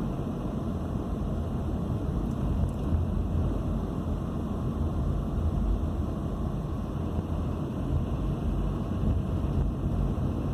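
Steady low rumble of a car driving, heard from inside the cabin: tyre and engine noise.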